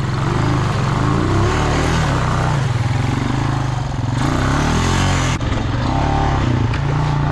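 Honda Rancher 350 ATV's single-cylinder engine running and revving up and down as it is pushed through a mud hole. A noisy rush lies over the engine from about two seconds in and cuts off abruptly a little past five seconds.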